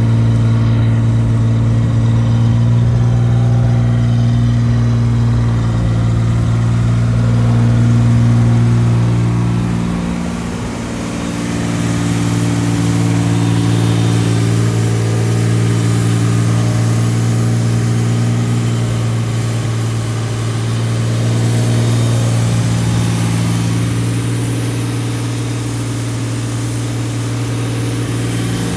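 1986 Chevy S10 Blazer's 2.8-litre V6 engine running with a steady hum, easing off briefly about ten seconds in and picking up again with small changes in engine speed.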